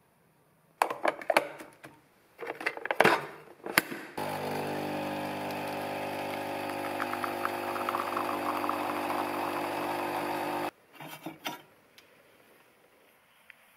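Single-serve coffee pod machine brewing a cup: a few knocks and clicks of handling, then about six seconds of steady pump hum with coffee spluttering into the cup, which stops abruptly. A couple of light knocks follow as the cup is taken off the drip tray.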